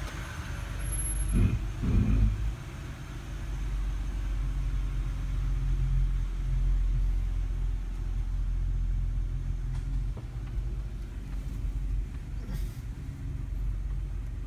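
Toyota Sienna minivan running in reverse, a steady low rumble, with two short low groans close together about a second and two seconds in. These are likely the brake noise the owner is listening for; he thinks he heard it twice.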